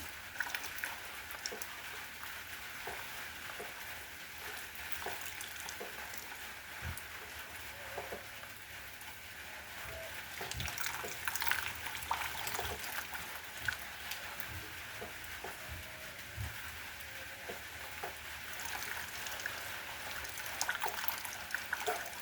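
Steady rainfall: an even hiss of rain, with many separate drops pattering and dripping close by, a little heavier around the middle.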